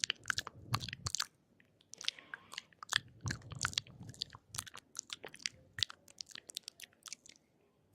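Close-miked chewing: irregular crisp clicks and crunches, with a few heavier bites, easing off near the end.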